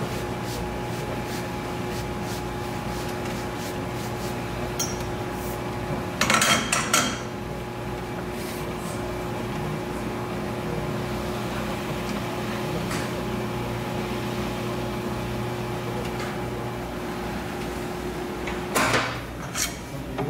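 Noodle sheeting machine running with a steady hum. There is a burst of metal clanks about six seconds in, and more clanking near the end as the hum cuts off.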